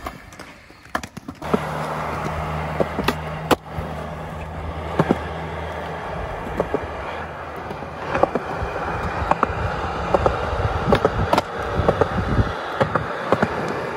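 Skateboard wheels rolling over smooth concrete, a steady rumble starting about a second and a half in, with sharp clacks of the board and trucks scattered through it.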